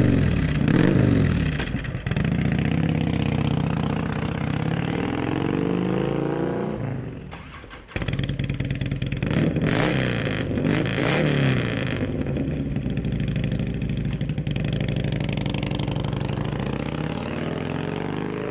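Harley-Davidson Softail V-twins running through non-baffled Samson True Dual exhausts with 36-inch fishtail slip-ons. The engines are blipped in a few revs, then run steadily and fade. After an abrupt cut about eight seconds in, there is another run of revving, then steady running that fades near the end as the bike rides away.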